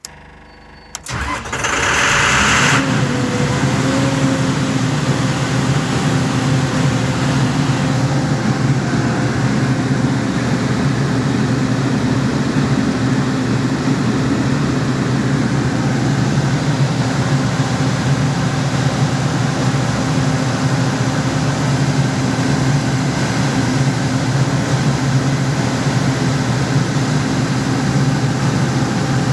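Six-cylinder John Deere diesel engine of an MEP-806A 60 kW tactical quiet generator being started: about a second of cranking, then it catches and runs at a steady speed. A brief high-pitched buzz sounds for about a second just after it starts.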